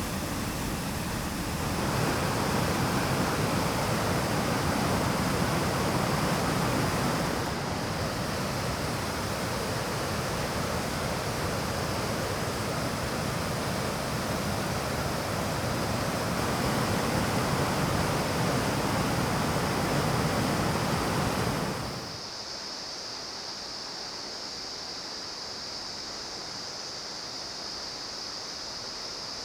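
Rushing water of a mountain stream and waterfall, a steady full roar. About three-quarters of the way through it cuts abruptly to a quieter, thinner rush with a steady high hiss.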